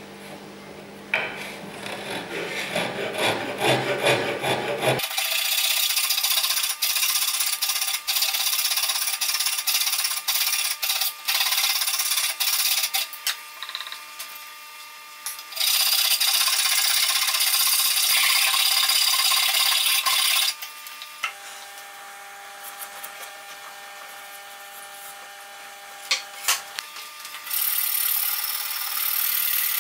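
Hand rasp scraping back and forth across a wooden block, shaping it, in several stretches that start and stop abruptly at edits. A quieter stretch past the middle holds only faint steady tones.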